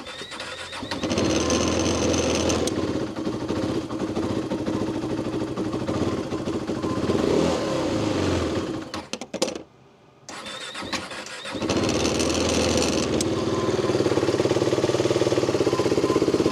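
An engine that had been cranking without firing is turned over on its electric starter with a brief whine, catches and runs unevenly, then stalls a little past midway. It is cranked again, catches, and settles into a steady, even idle, now starting and running.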